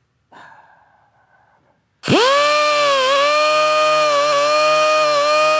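Small electric rotary power tool spinning up about two seconds in and then running steadily at high speed, its pitch dipping slightly now and then as it is pressed onto the work: grinding off a burr that a loose key raised on an engine shaft.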